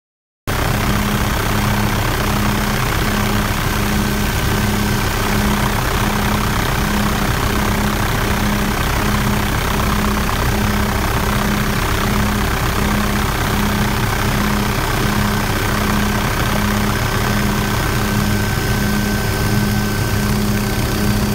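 Helicopter in flight, heard from aboard: a loud, steady engine and rotor drone with a wide hiss over it and a low tone that pulses about once a second. It starts abruptly about half a second in.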